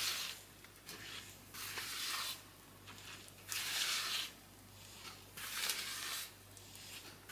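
Pink spatula scraping and folding flour into thick brownie batter in a plastic mixing bowl, in a series of short, wet scraping strokes every second or two.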